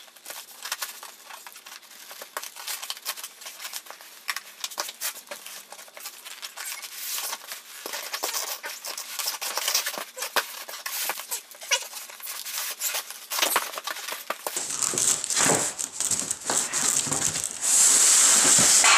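Polystyrene foam packing squeaking and scraping against a cardboard box as a boxed monitor is worked out of it, played at four times speed, so the sounds come high and clipped. A rapid run of small clicks and rustles, with a louder hissing scrape near the end.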